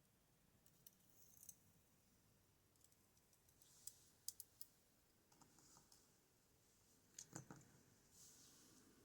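Faint, scattered small clicks and light taps of tiny lock pins, springs and drivers being handled and set down while a pin-tumbler lock is taken apart, with a brief cluster of clicks midway and the loudest taps near the end.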